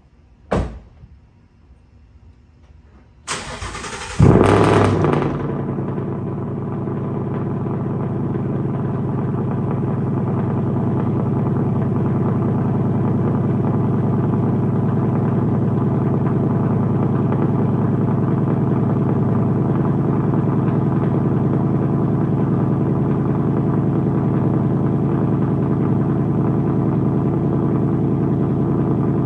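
A car door shuts once. About three seconds later a Ford Mustang's engine cranks, catches with a loud flare of revs, then settles into a steady idle through its modified exhaust.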